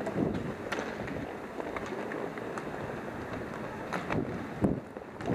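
Roller hockey play: a steady rushing of inline skate wheels on the rink surface, with a few sharp clacks of sticks and puck.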